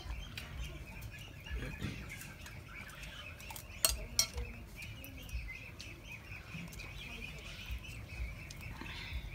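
Spoons clinking against plates during a meal, with two sharp clicks close together about four seconds in, over a steady high chirping in the background.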